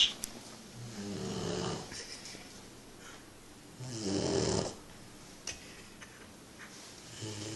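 Pit bull puppy snoring in its sleep, three snores about three seconds apart, each under a second long. A brief sharp click comes right at the start.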